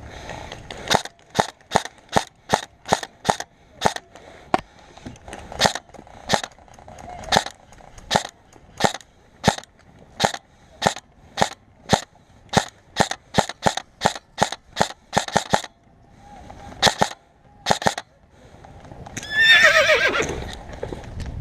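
Airsoft guns firing single shots in quick succession, about two sharp cracks a second, with a short pause partway through. Near the end a loud cry falls in pitch, like a yell.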